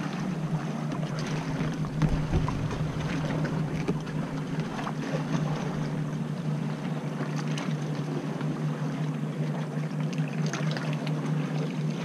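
Oars of an inflatable rowing dinghy dipping and pulling through the sea in slow strokes, about one every three seconds, over a steady low hum.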